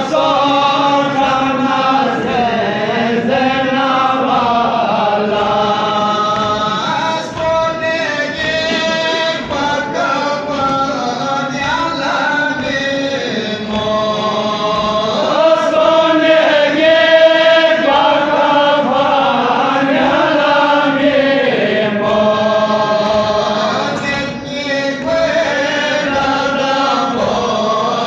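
Men's voices chanting a noha, a Shia mourning lament, together, over a steady beat of chest-beating (matam).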